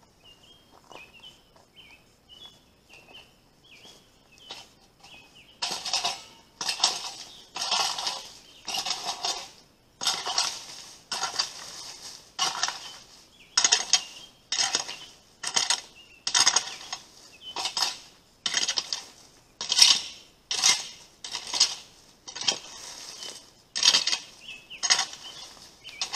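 A rake scraping through dry leaves and dirt in repeated strokes, about one a second. The strokes start about five seconds in.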